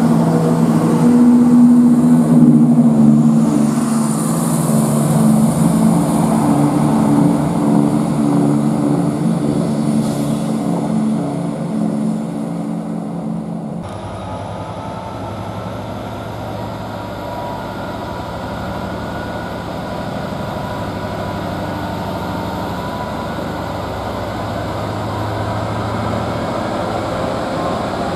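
Class 170 Turbostar diesel multiple unit's underfloor diesel engines running as the train moves along the platform, gradually fading. After a cut about 14 seconds in, a quieter, steady hum from a Class 66 diesel locomotive approaching slowly.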